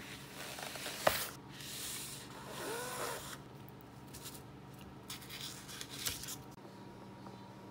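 Cardboard and paper packaging being slid and rubbed by hand: a box slides out of its cardboard sleeve with a sharp knock about a second in and a brief squeak of rubbing card, then a paper band slides off a metal case with more rubbing and a small click near the end.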